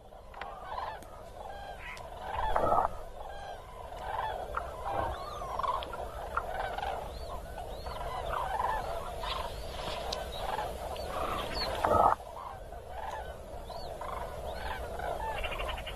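A large flock of common cranes calling, many overlapping calls at once, with a louder call standing out about two and a half seconds in.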